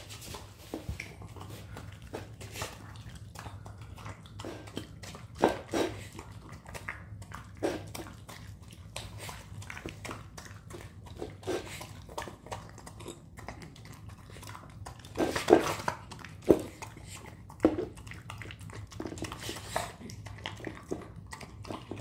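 A small dog eating soft homemade stew from a ceramic bowl: irregular wet chewing and smacking with clicks of teeth and food against the bowl, a few louder bursts around five and fifteen seconds in.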